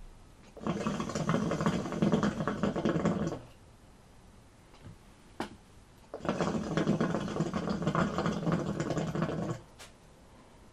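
Hookah water base bubbling as air is drawn through the hose: two pulls of about three seconds each, a few seconds apart.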